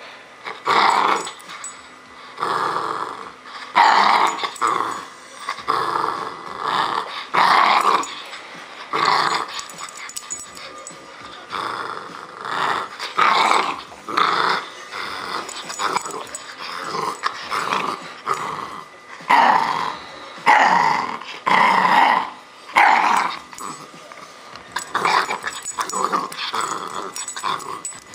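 Bull terrier puppy play-growling in repeated short bursts, about one a second, while tugging on a rope toy.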